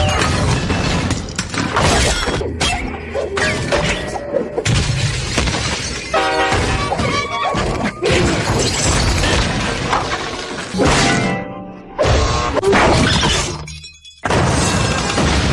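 A run of cartoon sound effects played back to back, mostly glass shattering and crashing, with music-like pitched ringing in between.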